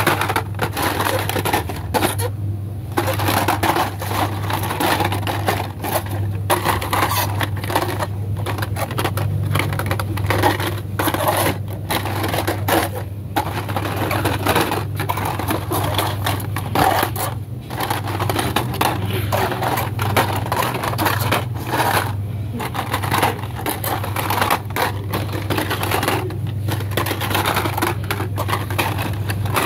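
Cardboard-and-plastic blister packs of die-cast toy cars crinkling, scraping and clacking as they are flipped through and pushed along metal peg hooks, a dense run of irregular crackles and clicks. A steady low hum sits underneath.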